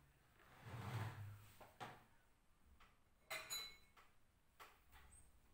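Faint handling noises at a wooden table: a soft brushing sound about a second in, then a few light knocks spread through the rest.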